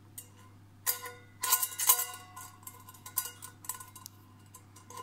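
Stainless steel camp pot, lid and wire bail handle clinking and knocking together as they are handled, each clink leaving a short metallic ring. The loudest clinks come a second or two in, followed by lighter ticks.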